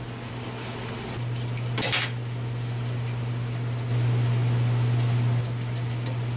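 Steady low hum of the shop's running cooler fan, louder for a second or so in the middle. Over it come light clinks of the compression tester's hose and fittings being handled, and one brief sharp noise about two seconds in.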